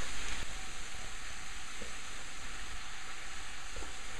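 Diced peppers, mushrooms and onion sizzling steadily in a frying pan.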